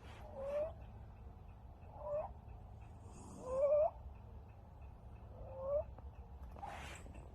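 A kitten's laboured breathing: a short, squeaky, chirping wheeze with each breath, four times at about one every one and a half to two seconds, the loudest about halfway through. A brief noisy puff comes near the end. The wheeze is the sign of obstructed breathing that persisted after an upper respiratory infection.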